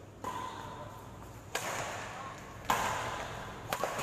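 Badminton rackets striking a shuttlecock in a rally: four sharp hits a little over a second apart, each echoing through the hall.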